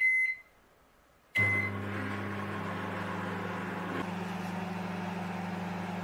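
Convection microwave oven's keypad beeping as it is set, with one beep right at the start and another about a second and a half in as it is started. The oven then runs with a steady low hum, cooking on microwave mode.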